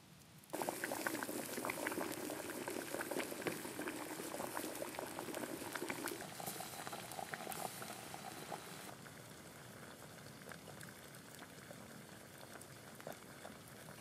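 Water boiling hard in a pot over a wood fire, a dense bubbling and popping that starts suddenly about half a second in and eases a little after about nine seconds.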